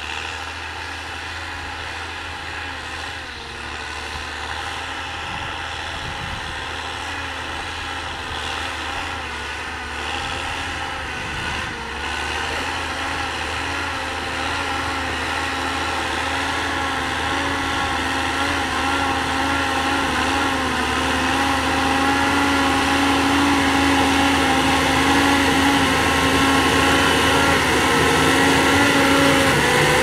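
John Deere tractor's diesel engine running steadily under load as it pulls a disc plough through the soil. It grows steadily louder as the tractor comes closer.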